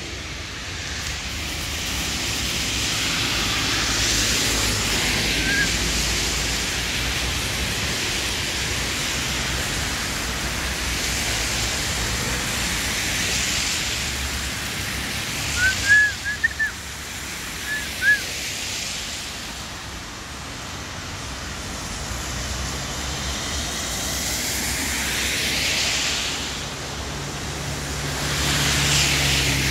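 Traffic on a wet road: tyre hiss from passing cars swells and fades several times over a steady background rumble. Just past the middle come a few short, high chirps.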